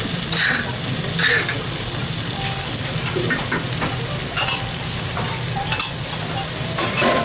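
Slice of breaded wagyu beef cutlet (gyukatsu) searing on a hot grill plate over a gas flame: a steady sizzle with scattered sharp pops.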